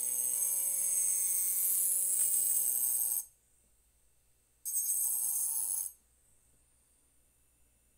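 Rotary engraving tool whining at high speed as its bit grinds into a wine glass. It runs for about three seconds, stops abruptly, runs again for about a second, then stops.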